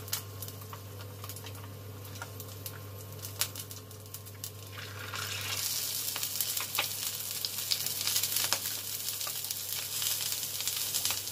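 Fish-paste-stuffed tofu puffs frying in hot oil in a nonstick pan: a quiet sizzle with scattered pops, turning abruptly into a louder, denser sizzle about halfway through.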